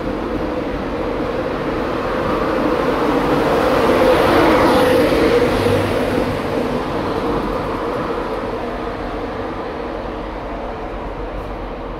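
LNER InterCity 225 train departing: Mark 4 coaches rolling past, then the Class 91 electric locomotive passing close with a steady hum. The sound is loudest about four to five seconds in and fades as the train pulls away.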